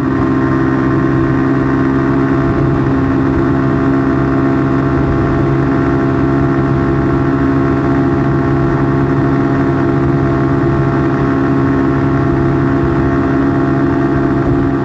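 An engine idling steadily and loudly at an even pitch, with no revving.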